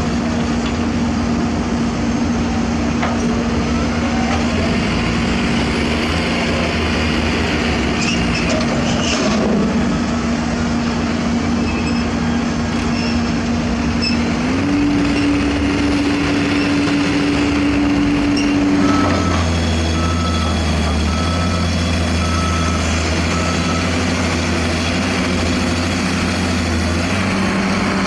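Heavy diesel construction machinery running steadily, the engine note rising about halfway through as it is worked harder. About two-thirds through, a reversing alarm sounds a series of evenly spaced beeps for a few seconds.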